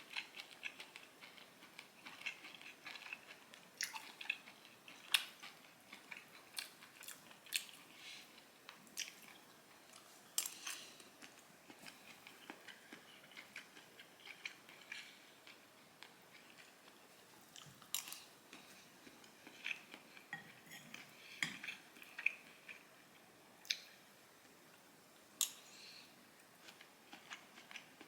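Someone eating pork fried rice from a plate: faint cutlery clicking and scraping against the dish at irregular intervals, with soft chewing between the clicks.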